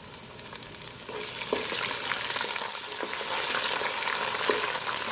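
Food sizzling in hot oil in a pan while a spoon stirs it, scraping and knocking against the pan several times; the sizzle grows louder about a second in.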